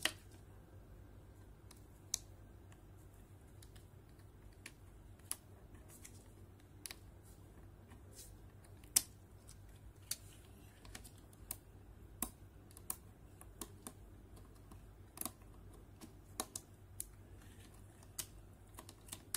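Irregular small clicks and taps of a plastic spudger and fingertips prying and handling small parts inside the opened frame of an Asus Zenfone Go phone, over a faint steady hum.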